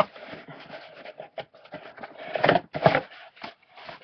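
Hands rummaging through packaging: irregular rustling and scraping with a few knocks, loudest about two and a half to three seconds in.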